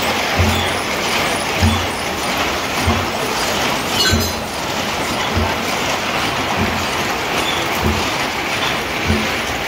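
Mechanised sedge-mat weaving loom running, a steady clatter of gears and shafts with a dull thump about every second and a quarter as each cycle turns over.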